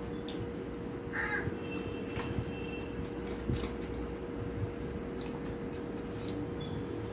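Fingers mixing rice and vegetable curry on a steel plate, with soft clicks and squishes, over a steady background hum. A bird calls once about a second in.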